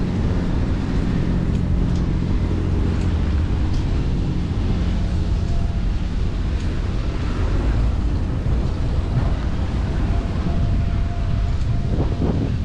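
Steady rumble of wind and road noise on a GoPro's microphone while cycling, with a vehicle engine hum that fades out after the first few seconds.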